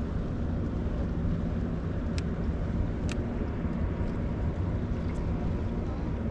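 A boat engine runs with a steady low hum, and two light clicks come about two and three seconds in.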